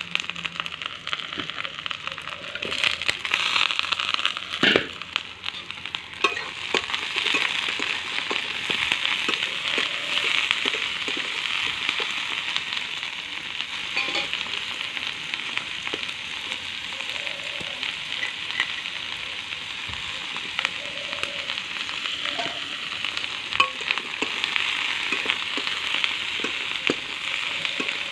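Shredded cabbage and potato pieces sizzling steadily in hot oil in a metal pan. Frequent short clicks and scrapes come from a spatula stirring them.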